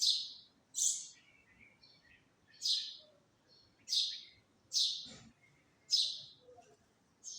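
A bird chirping, one short high call about every second, seven in all. A brief low thump about five seconds in.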